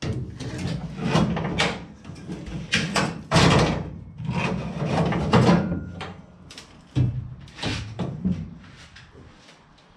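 Irregular clanks, knocks and scrapes of sheet metal being handled and worked loose on an old car body.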